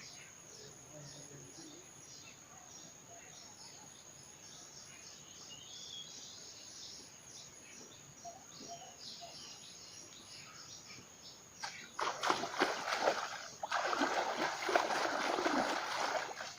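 Water splashing and sloshing, which starts suddenly about twelve seconds in and goes on loudly with a short break near fourteen seconds. Before it there is only faint rural background with a steady high chirring.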